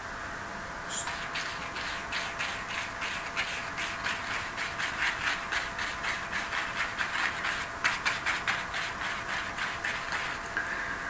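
Paintbrush scrubbing oil paint onto a stretched canvas in quick back-and-forth strokes, about four a second. The strokes start about a second in and stop near the end.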